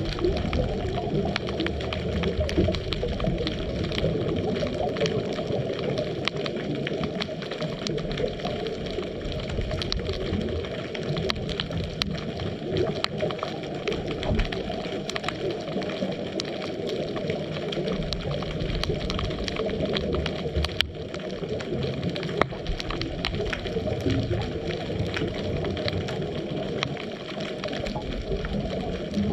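Underwater ambience heard through a GoPro's waterproof housing on a scuba dive: a steady, muffled low rumble of water with many faint crackling clicks.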